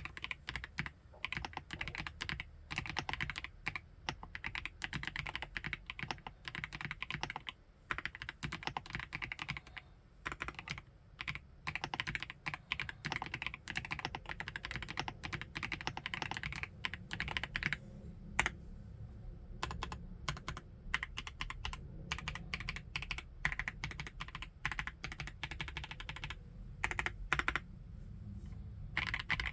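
Continuous fast typing on an FL-Esports OG98 mechanical keyboard with MX Ice Silver switches, a dense run of keystroke clacks with short pauses about two-thirds of the way in and near the end.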